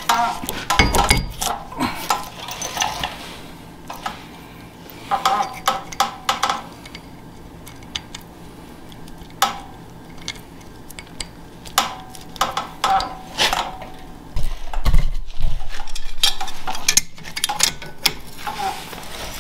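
Small metal clinks and taps as a washer and spindle nut go onto a front wheel spindle and a wrench is worked on the nut to seat the hub and brake rotor. About two-thirds of the way in comes a louder stretch of dense clattering lasting about two seconds.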